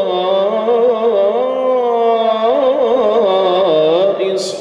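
A man reciting the Quran in slow, melodic tajweed style, drawing out a syllable in long wavering melismatic runs. There is a short hiss near the end.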